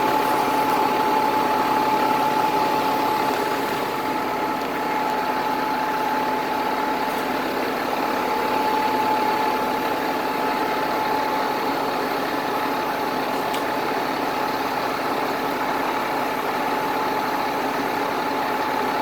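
A crane's engine running steadily, with a steady whine held at one pitch throughout.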